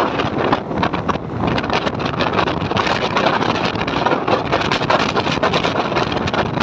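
Passenger train running, heard from on board: a steady rumble and clatter of wheels on the rails, with wind buffeting the microphone.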